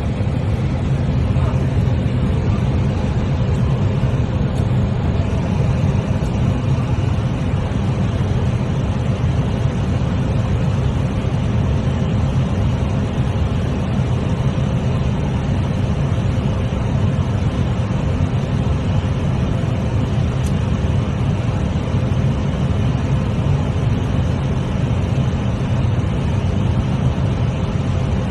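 Airliner cockpit noise in flight: a steady low rush of airflow and engine drone, with a faint constant hum above it.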